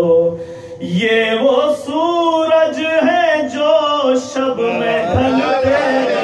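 A man's voice chanting in a melodic, sung recitation style, the pitch gliding and held on long notes, resuming after a short pause about a second in.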